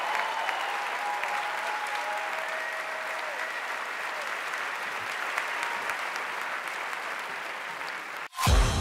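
An audience applauding steadily. Near the end it cuts off abruptly and loud music starts.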